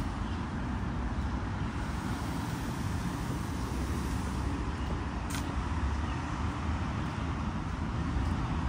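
Steady rumble of passing road traffic, with a faint click about five seconds in.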